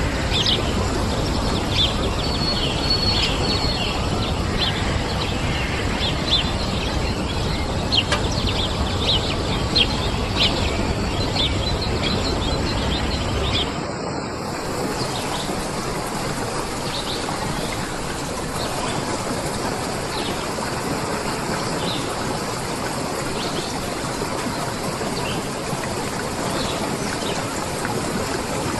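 Small birds chirping over a steady rush of running water. About halfway through the sound changes abruptly: the deep rumble drops away and the birdsong fades, leaving mostly the rush of water.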